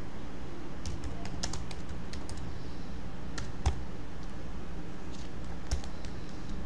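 Typing on a computer keyboard: a quick run of keystrokes, then a few separate key taps, the loudest a little past halfway.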